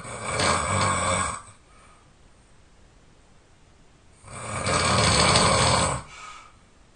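A person snoring loudly: two long snores about four seconds apart, each lasting under two seconds, the second trailing off more softly.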